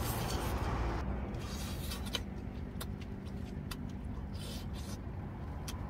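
Spaghetti slurped off chopsticks in the first second, then quiet chewing with a few small sharp clicks. A steady low rumble runs underneath.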